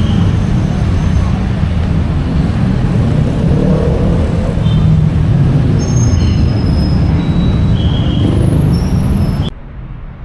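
City street traffic: engines of buses and other vehicles running, a loud steady low rumble with a few short high squeaks, cutting off abruptly about nine and a half seconds in.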